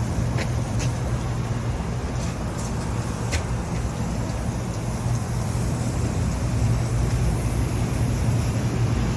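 Lennox rooftop package units running with a steady low mechanical hum and fan rush, with a few faint short high chirps over it.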